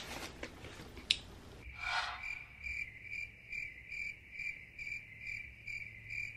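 A cricket chirping in a steady, even rhythm, a little over two chirps a second, starting about two seconds in. Before it come a few faint clicks and rustles.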